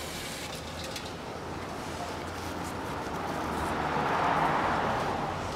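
Aerosol spray cleaner hissing as it washes oil drips off a freshly fitted oil filter; the can is running out. The hiss grows louder from about halfway through.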